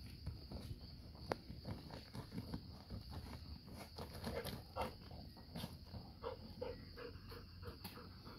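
Labrador retriever digging in stony earth: faint, irregular scratching of paws in dirt with small clicks of gravel and pebbles.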